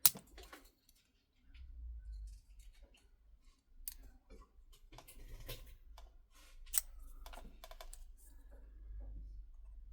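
Small repair tools clicking and scraping against the plastic and metal inside a phone as a glued plastic part is picked and pried loose. The clicks and scratches come irregularly over a low handling rumble.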